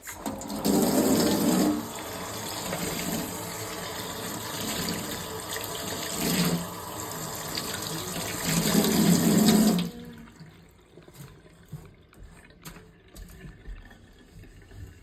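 Water running from a tap into a sink, louder near the start and again just before it is turned off about ten seconds in; a few faint clinks follow.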